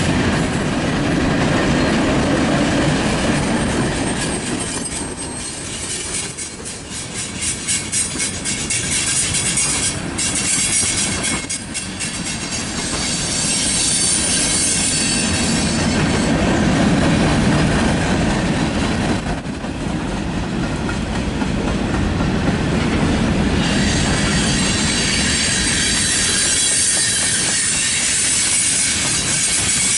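Freight cars of a Canadian National manifest train rolling past close by: a steady rumble of steel wheels on the rails, with rhythmic clacking over the rail joints. It eases off for a few seconds about a fifth of the way through, and a hissing high edge comes in near the end.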